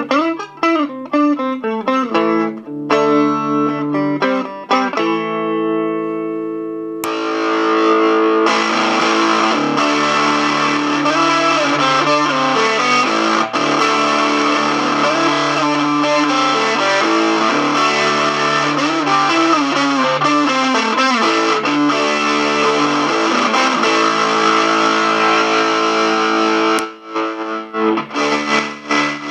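Electric guitar played through a white-noise, distortion, tremolo and reverb effects pedal. Clear plucked notes for about seven seconds, then a switch click and the sound turns into a dense distorted wash thick with hiss; near the end another click and it thins back to clearer notes.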